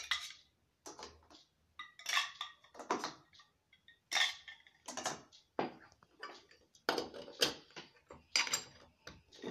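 Ice cubes dropped into a stainless steel cocktail shaker tin, a string of separate clinks and clatters about one a second. Near the end, the shaker's metal strainer top and cap go on with a few more metallic clicks.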